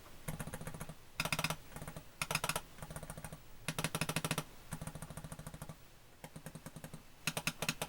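Repaired Amiga 1000 mouse's buttons being clicked in short rapid bursts, about seven bursts of sharp plastic clicks, with stiffer actuation than stock switches.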